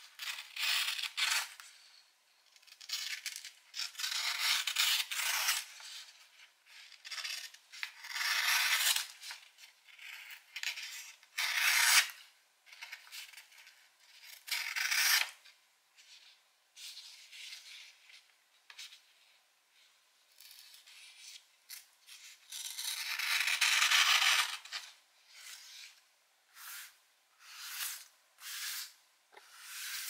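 Thin steel blade of a Sanrenmu 7129 folding knife slicing through a sheet of paper again and again in a sharpness test. Each cut gives a scratchy hiss. Some strokes are short and some are drawn out for a second or two, and they come shorter and quicker near the end.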